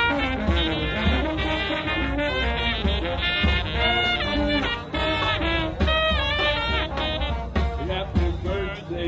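Brass band playing a swinging jazz tune: horns over a steady drum beat, with a few bent, sliding horn notes.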